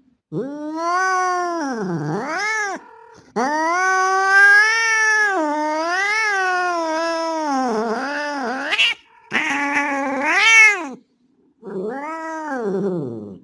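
Male cat caterwauling: four long, wavering yowls that rise and fall in pitch, the second lasting about five seconds. It is a tomcat's mating call to a female.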